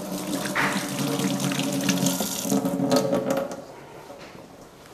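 Kitchen tap running into a sink, a steady rush of water that stops about three and a half seconds in.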